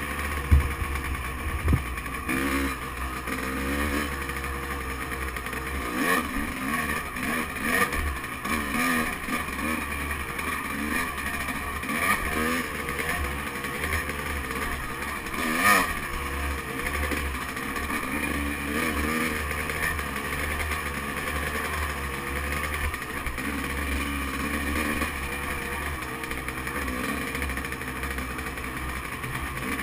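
Dirt bike engine running at low trail speed, its pitch rising and falling with the throttle. A rumble of wind on the microphone comes and goes, and a few sharp knocks from the bumpy ride are heard, the loudest about half a second in and near the middle.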